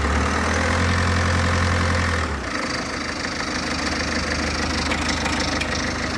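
Citroen C4 1.6 HDi four-cylinder diesel idling with a rattle from its turbocharger heat shield, which has worked loose. A deep drone sits under it for the first two and a half seconds or so, then drops away.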